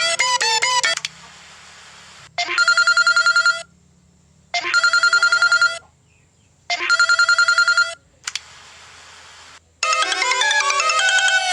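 A sequence of phone ringtones. A short melodic ringtone ends about a second in. Then an electronic trilling phone ring sounds three times, each ring about a second long with short pauses between, and another quick melodic ringtone starts near the end.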